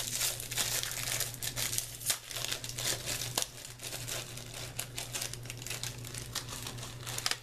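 Plastic wrapper of an individually wrapped senbei rice cracker crinkling as it is opened and handled: a dense, continuous run of crackles, with one sharper snap about three and a half seconds in.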